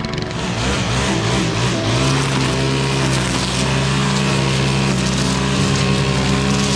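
An engine climbing in speed over the first two seconds, then running steadily at that higher speed.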